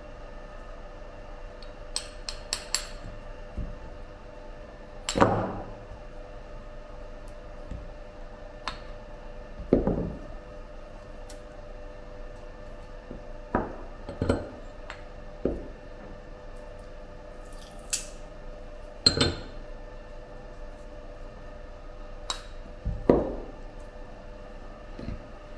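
Hardened geopolymer mortar prisms and steel mould plates being knocked loose and set down on a hard bench: a dozen or so separate clunks and clacks at irregular intervals, with a quick run of small clicks about two seconds in. A steady hum runs underneath.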